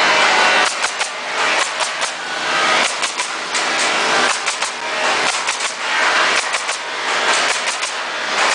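Pneumatic nail gun firing nails into wooden pallet boards: sharp shots in quick runs of several, with short pauses between runs, over a steady hiss.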